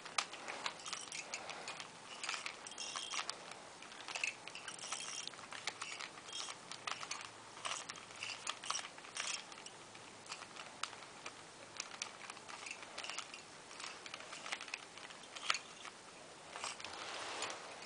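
Rubik's cubes being turned quickly: a steady stream of irregular plastic clicks and clacks from the layers snapping round.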